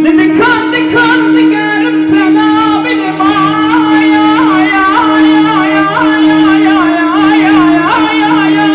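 Kurdish dengbêj uzun hava: a voice singing long, free-flowing phrases with heavy ornaments and quick turns in pitch over a steady held drone.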